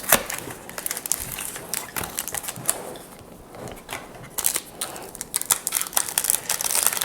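Foil Pokémon booster pack wrappers crinkling and being torn open, with irregular sharp clicks and rustles that grow busier about four and a half seconds in.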